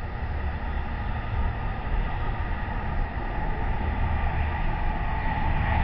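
Steady low rumble and hiss of outdoor background noise picked up by a security camera's microphone, with faint steady tones that get slightly louder near the end.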